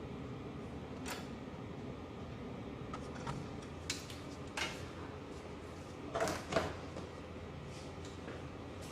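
Scattered clicks and knocks of hand work on car parts over a steady low hum. The loudest is a close pair of knocks a little after six seconds in.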